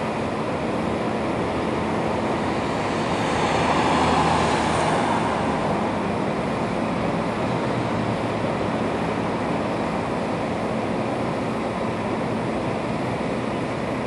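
Steady hum of distant vehicle noise that swells for a couple of seconds about four seconds in, as something passes.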